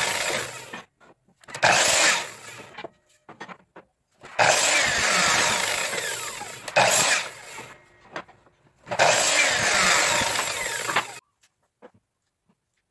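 Electric power tool working wood in four bursts of one to three seconds each, switched on and off with sudden starts and stops, falling silent about eleven seconds in.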